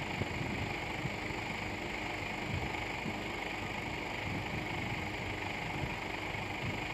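A burning car, heard from a distance: steady crackling and small pops over a constant hiss, with no large bang.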